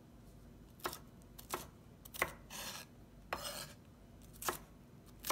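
Chef's knife slicing a green bell pepper on a wooden cutting board: about six sharp knocks of the blade against the board, irregularly spaced roughly a second apart, with two brief scraping swishes in the middle.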